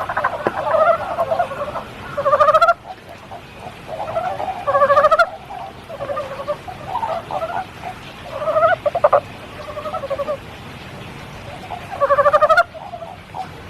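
Frogs calling in a chorus: many overlapping pulsed, croaking calls, with four loud short ones that rise in pitch, over a faint steady patter of spring rain.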